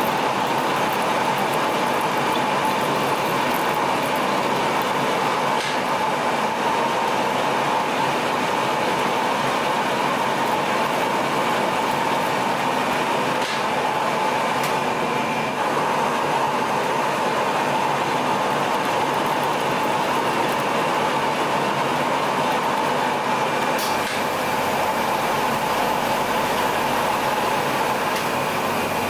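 Colchester Master 2500 metal lathe running steadily, its spindle turning a 4140 steel shaft while a threading insert cuts the thread, with a few faint ticks.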